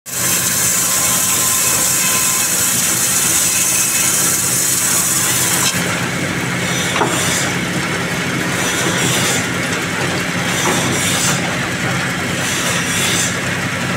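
Sawmill band saw cutting a maçaranduba hardwood log lengthwise: a steady machine hum under a loud high hiss of the blade in the wood. About six seconds in the hiss thins and then comes and goes.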